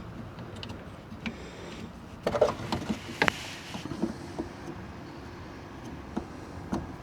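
Scattered light clicks and taps from a hand screwing the drain plug, with its new seal, back into a diesel fuel filter housing, with a short rustle about three seconds in.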